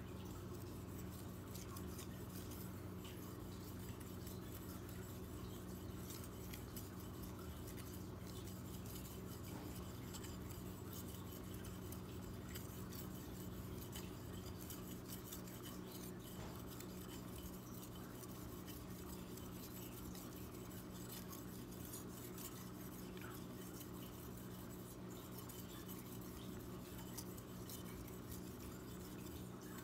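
Blue II steel knife blade stroked back and forth on a wet Wakasa awasedo Japanese natural sharpening stone: a faint, steady rubbing and scraping of steel on stone, over a steady low hum.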